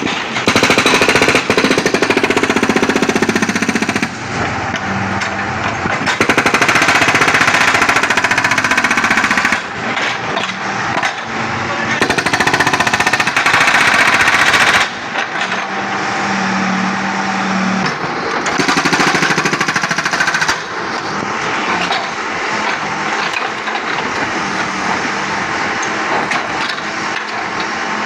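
Backhoe-mounted hydraulic breaker hammering a 5-inch slab in rapid blows. It comes in four loud runs of a few seconds each, with quieter hammering and machine noise between them.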